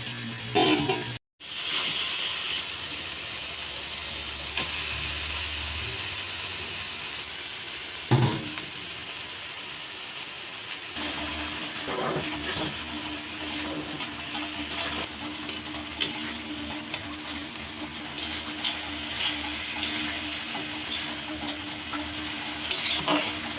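Chopped banana flower frying in a pan and being stirred: a steady sizzle, with a sharp knock of the utensil against the pan about eight seconds in.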